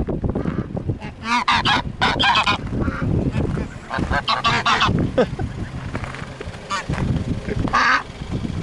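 Domestic geese honking in several bursts of rapid, wavering calls, the longest about a second in and again around four to five seconds in, over a steady low rumbling noise.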